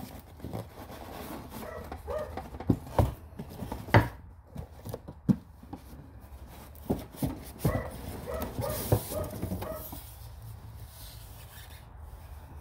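A cardboard box and its polystyrene foam packing being handled and pulled apart, with scattered knocks, clicks and rubbing. The loudest knock comes about four seconds in.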